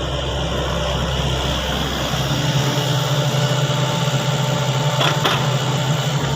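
Sany excavator's diesel engine running steadily, its low hum changing pitch about two seconds in, with a short knock or clank about five seconds in.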